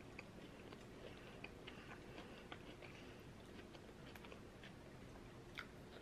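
Faint close-up chewing of a soft cream cheese danish, with scattered small wet mouth clicks and smacks, and a new bite into the pastry near the end.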